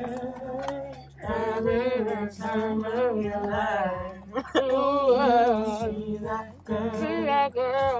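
Song with singing: long, wavering sung notes in phrases separated by short pauses, over a steady low backing.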